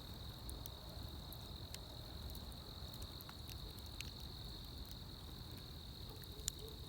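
Crickets trilling in a steady, high-pitched chorus, with a few faint scattered pops from a burning wood fire.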